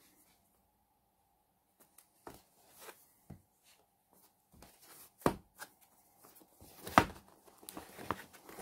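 Cardboard box being handled and turned over in the hands: a few scattered soft knocks and scrapes, the loudest about five and seven seconds in, with light rustling of the box toward the end.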